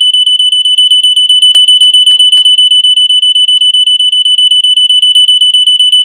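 Gentex 710CC photoelectric smoke detector sounding its alarm: a loud, continuous high-pitched tone with a fast flutter. It has been set off by soldering-iron smoke in its sensing chamber.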